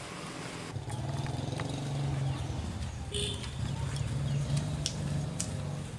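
An engine running steadily at a low pitch, coming in suddenly about a second in after a steady outdoor hiss, with a few light ticks over it.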